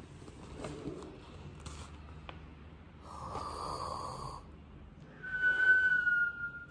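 A cartoon-style snore: a rasping in-breath snore, then a whistled out-breath whose pitch falls slightly, the whistle being the loudest part. A few faint clicks and rustles come before it.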